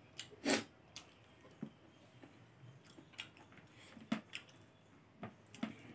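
A person chewing a mouthful of rice and greens eaten by hand, with irregular wet mouth clicks and smacks, the loudest about half a second in.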